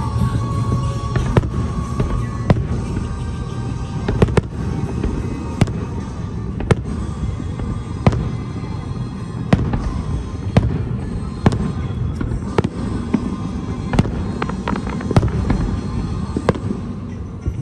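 Aerial fireworks shells bursting, sharp bangs coming irregularly about once a second over a continuous low rumble of further explosions.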